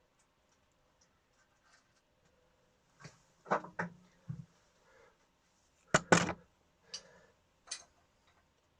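Hand tools clinking and knocking against metal engine parts in a run of short, separate strikes, the two loudest together about six seconds in.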